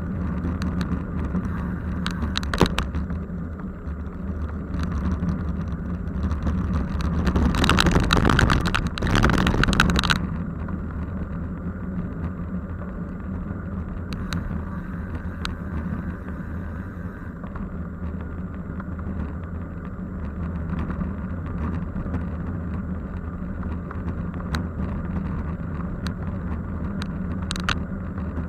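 Road vehicle driving along, a steady engine and road hum, with a louder rushing stretch lasting about two and a half seconds, starting about seven and a half seconds in.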